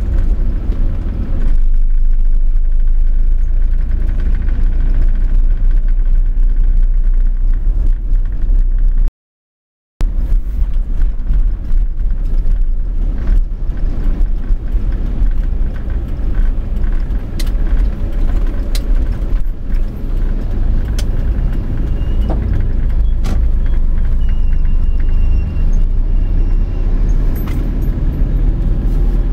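Steady low rumble of a moving vehicle, road and engine noise picked up by a camera riding along with it, with light rattles and ticks. The sound cuts out completely for about a second roughly a third of the way in.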